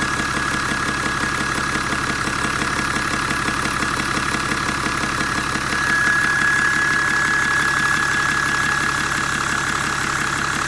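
Turbocharged AR70 engine, fitted with a modified racing compressor housing, running with a steady high turbo whistle over the engine's clatter. The whistle and the engine get louder about six seconds in.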